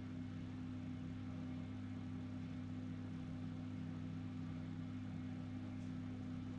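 A steady low hum with no change in pitch or level, and no other distinct sound.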